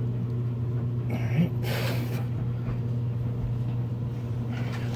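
A steady low electrical hum in a boiler room, with a short hiss about two seconds in as the pump is handled.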